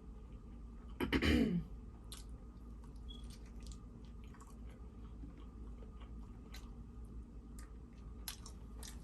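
A person chewing food close to the microphone, with small wet mouth clicks throughout. About a second in there is one short, louder sound that falls in pitch.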